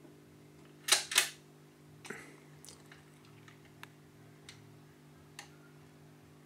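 Philips turntable's automatic start mechanism cycling: two sharp clicks about a second in, then a string of lighter ticks as the tonearm lifts and swings out over the spinning record. A steady low hum runs underneath.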